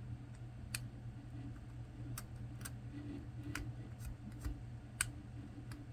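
Faint, scattered sharp clicks of a small pry tool working at the SD card reader inside an opened Raymarine e7 chart plotter, about half a dozen at uneven intervals, over a steady low hum.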